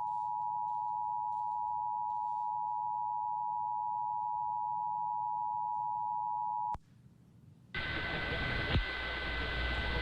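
Emergency Alert System attention signal: two steady tones (853 and 960 Hz) sounding together, cutting off sharply about seven seconds in. After a second of quiet, a steady hiss with a faint high tone comes in.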